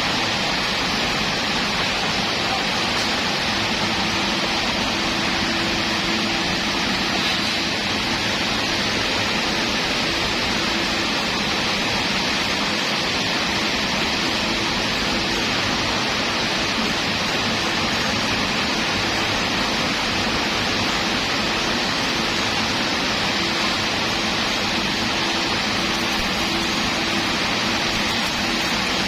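Electric welding arc crackling and hissing steadily without a break, with a faint hum underneath.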